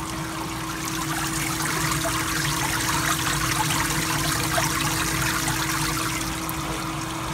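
Water splashing and trickling as it streams down inside a Hoshizaki KML631MAH ice machine during a test run of its newly installed water pump, with a steady hum from the running pump motor. The splashing swells in the middle.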